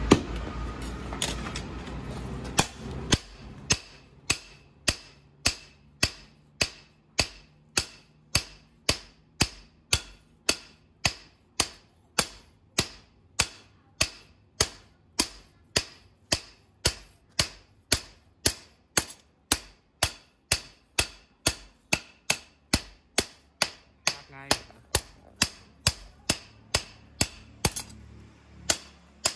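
Hand hammer striking a red-hot steel knife blade on an anvil, forging it to shape. A few scattered blows come first, then a steady run of sharp blows at about two a second, with one short pause near the end.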